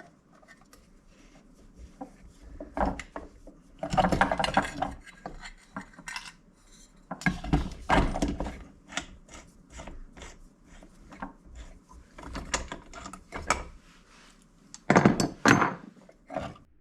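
Metal parts of a chip extractor's motor clinking, knocking and scraping in irregular clusters as they are worked loose by hand during disassembly.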